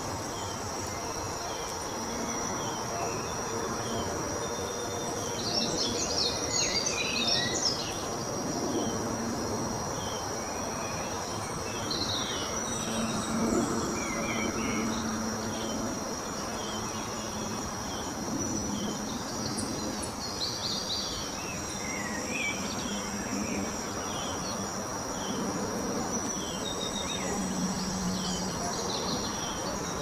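Birds chirping in short bursts every several seconds over a steady high-pitched whine, like insects in a garden.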